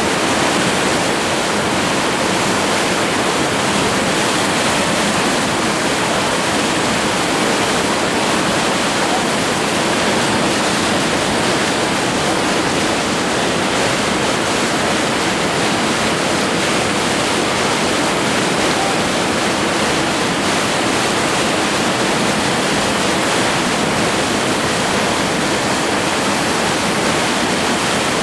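Whitewater rapids rushing: a steady, loud, unbroken wash of water noise.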